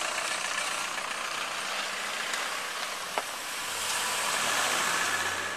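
A minivan passing close on the street, its tyre and engine noise swelling toward the end, over steady traffic noise. A single sharp click about three seconds in.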